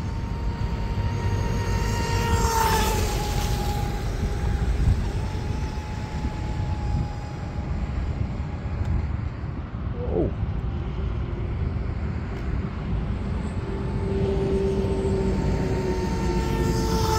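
Cozy M500 Mini Mono electric RC mono boat running high-speed passes on a 3S battery: a high brushless-motor and propeller whine that swells as the boat sweeps past about two seconds in and again near the end, over a low wind rumble.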